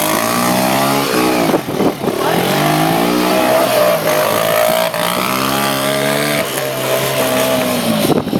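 A motorcycle engine accelerating in repeated pulls. Its pitch climbs, then drops back about four times.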